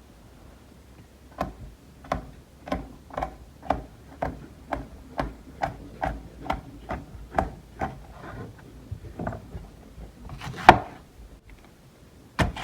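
A steady series of short knocks, about two a second, for roughly eight seconds, followed by two louder, sharper knocks near the end.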